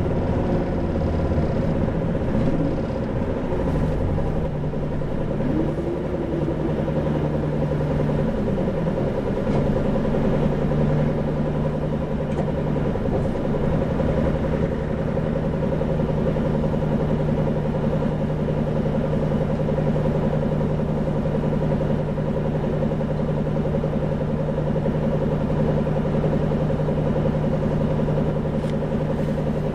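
Isuzu 2PG-LV290N3 city bus running, its four-cylinder diesel engine heard on board. The engine note rises and falls a few times over the first ten seconds or so, then holds a steady drone.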